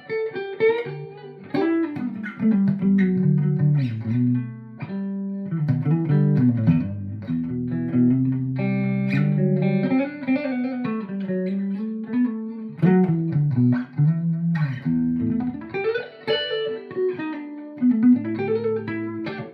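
ESP E-II Horizon electric guitar with EMG pickups played through a clean amp channel with reverb from an Electro-Harmonix Oceans 11 pedal: a run of picked single notes and chords.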